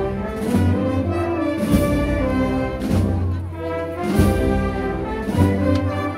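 A procession band's brass section, tubas and trombones among it, playing a slow processional march, with low brass holding long bass notes that change about every second.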